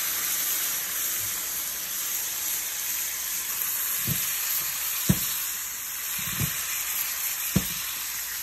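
Salmon fillets sizzling in hot oil, butter and lemon juice in a stainless steel sauté pan: a steady frying hiss. Four soft low knocks come in the second half, about a second apart.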